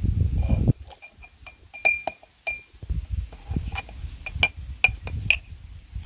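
A spoon clinking over and over against a small jar as freshly pounded garlic seasoning is scooped into it, each clink ringing briefly, with soft knocks in between. A dull low rumble of handling stops abruptly under a second in.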